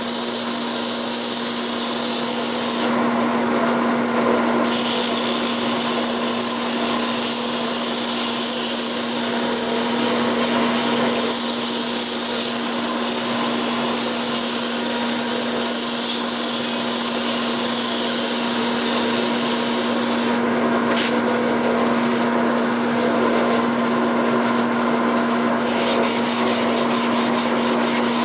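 A Record Power Harald wood lathe runs with a steady motor hum while abrasive rubs with a steady hiss on the spinning walnut handle. The hiss thins briefly a few seconds in, and again for several seconds near the end.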